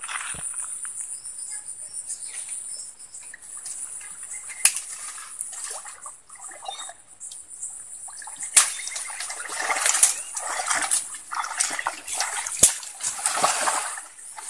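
Shallow stream water splashing and sloshing as a hooked eel is hauled up on a set fishing line, with a few sharp splashes and denser, louder thrashing in the second half.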